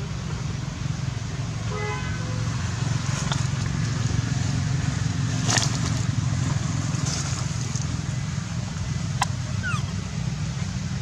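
Steady low rumble of a running vehicle engine, with a short horn-like toot about two seconds in and a couple of sharp clicks later.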